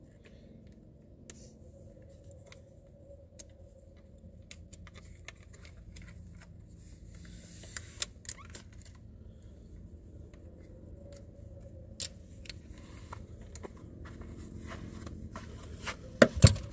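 Light rustling and scattered small clicks as a Centerpoint Heat 425 crossbow is cocked with a rope cocker, with sharper clicks about eight and twelve seconds in. Near the end comes a short burst of loud knocks close to the microphone.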